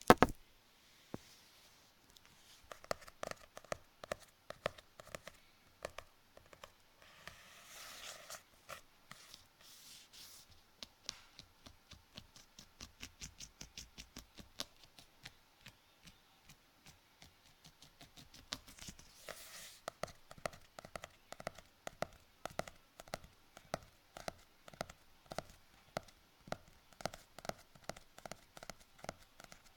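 Close-up ASMR handling sounds: an object scratched or stroked by hand in quick, even repeated strokes, about two to four a second, with a sharp click at the very start.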